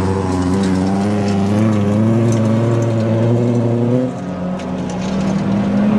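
Folkrace cars' engines racing, more than one engine note overlapping and rising and falling in pitch as the drivers work the throttle; the sound drops back briefly about four seconds in.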